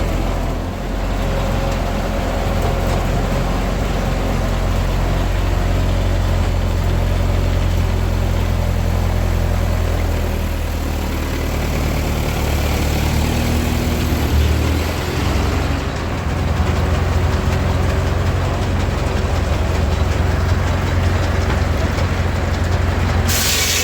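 Ford Model A four-cylinder engine running steadily on its governor, driving a sawmill. Its pitch shifts about halfway through, and a brief hiss comes near the end.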